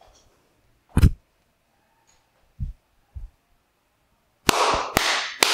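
A sharp knock about a second in, two soft low thumps, then three loud sharp smacks in quick succession near the end, each ringing briefly.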